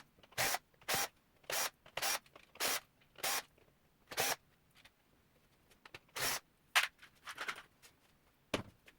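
Hand screwdriver backing out the screws of a synthesizer's potentiometer circuit board, a short rasping scrape with each twist, about two a second. After about three and a half seconds the strokes stop, and a few scattered scrapes follow.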